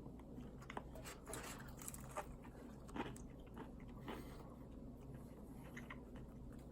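A person biting into and chewing a buttermilk fried chicken sandwich with bacon: faint, scattered crunching and mouth sounds.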